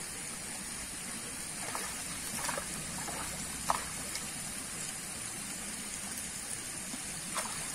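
Pond water churning and splashing as hooked freshwater pomfret thrash at the surface: a steady watery rush with a few small, sharp splashes.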